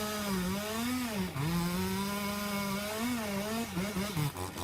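Chainsaw running at high revs while cutting, its engine pitch dipping and recovering several times, then falling away near the end.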